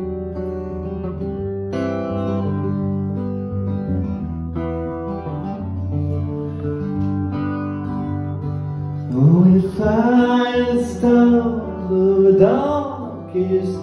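Acoustic guitar picked under long held notes from a neck-rack harmonica, in an instrumental break of a folk song. About nine seconds in, a man's voice comes in with a wordless, sliding vocal line over the guitar.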